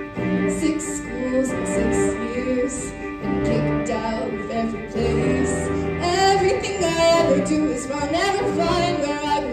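A solo singer on a microphone over a live rock band of keyboard, guitars, bass and drums, with cymbals ticking along throughout.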